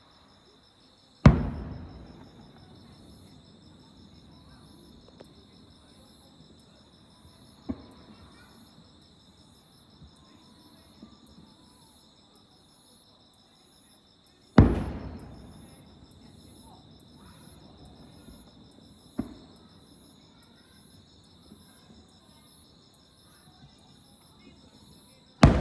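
Large aerial firework shells bursting in the distance: a loud boom about a second in and another about halfway, each followed by a long rolling echo, two smaller sharp reports between them, and a third boom at the very end. A steady, high pulsing insect trill runs underneath.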